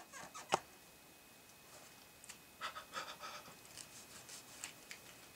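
Faint rustling of hands and clothing close to the microphone, with a couple of small sharp clicks in the first half second, the louder one about half a second in, and scattered scratchy rustles later on.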